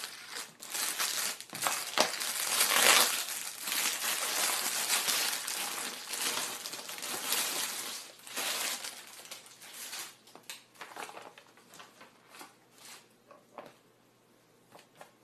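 Plastic packaging crinkling and rustling as it is handled and opened, dense for the first several seconds, then thinning to scattered short rustles that die away near the end.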